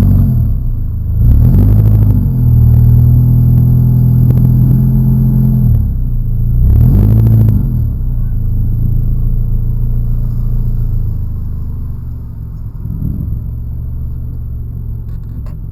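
Car engine revving up and down about four times in quick swells, then running more steadily at lower revs and growing quieter.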